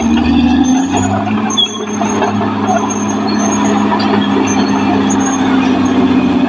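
Caterpillar D6R XL crawler bulldozer running, its diesel engine giving a steady drone, with short high-pitched squeals coming and going over it.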